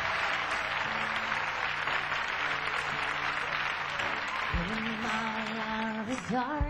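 Studio audience applauding, with faint held notes underneath. About four and a half seconds in, a steady pitched tone comes in, and it bends up and down near the end.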